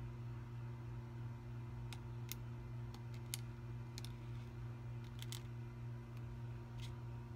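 A steady low electrical hum with about eight faint, sharp ticks scattered through it, from a paper cup of water being slowly tilted and poured onto a plate.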